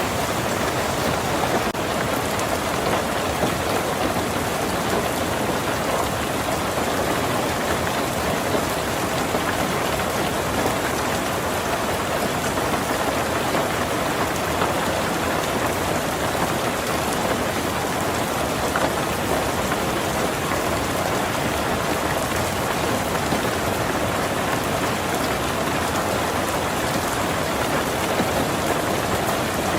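Heavy rain falling steadily on a tin roof, an even, unbroken patter of drops.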